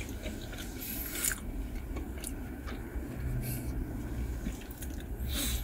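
Close-up chewing of a mouthful of spicy fried chicken sandwich: scattered soft wet mouth clicks over a low steady hum.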